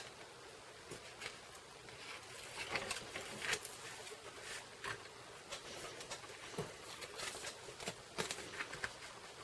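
Cardstock and paper being handled close to the microphone: scattered soft rustles, crinkles and light taps as pieces are peeled, lined up and pressed down.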